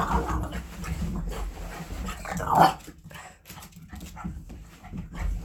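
A half French Bulldog, half Boston Terrier puppy dashing back and forth across a rug and hardwood floor: paws scrabbling and thudding in quick, irregular clicks. About two and a half seconds in comes a short vocal sound from the dog, the loudest moment.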